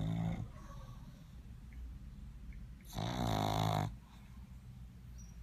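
Pug snoring while asleep on its back: one loud rasping snore about three seconds in, lasting about a second, with the tail of the previous snore at the very start and quieter breathing between.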